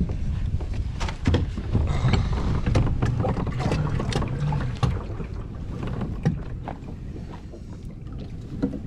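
Water splashing and scattered knocks against a kayak's hull as a big carp is released back into the water, with wind on the microphone.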